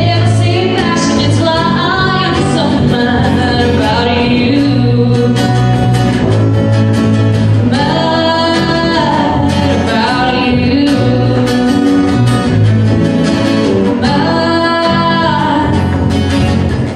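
A woman singing to two acoustic guitars in a live acoustic duo performance, her sung phrases running over the guitars' steady accompaniment.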